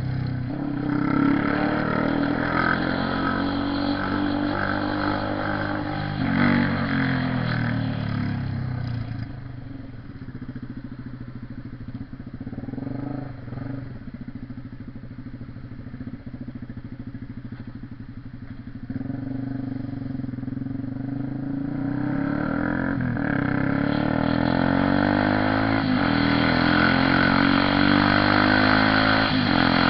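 Honda CB 300R single-cylinder motorcycle engine on the move. Its pitch rises and falls through revs and gear changes, it drops back and quietens for about ten seconds in the middle, then it climbs steadily as the bike accelerates near the end.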